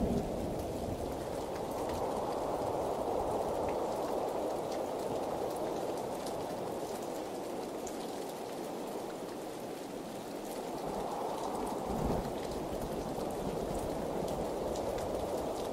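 Steady heavy rain falling on wet pavement and puddles: a dense, even hiss of drops with scattered individual drop ticks. A brief low rumble comes near the start and again about twelve seconds in.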